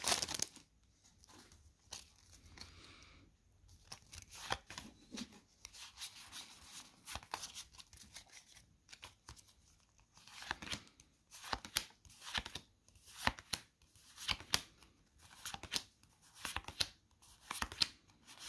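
Pokémon trading cards and their booster-pack wrapper being handled: faint rustling and tearing at first. Then, from about halfway through, a run of short clicks and slides, about one or two a second, as the cards are flicked through one by one.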